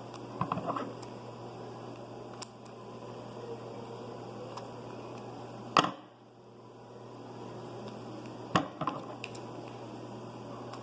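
Paper and plastic-bag stuffing being handled while a paper squishy is filled and closed: a few short, sharp crinkles and clicks, one louder than the rest about six seconds in, over a steady hiss and low hum.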